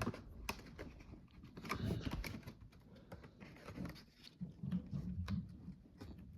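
Handling of a DVD and its tight cardboard packaging: scattered clicks, taps and scrapes as the DVD is worked back into the box, which is hard to get back in.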